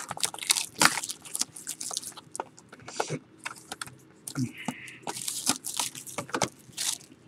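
Trading card pack wrapper crinkling and tearing open, with quick crackling clicks and rustles as the cards are handled.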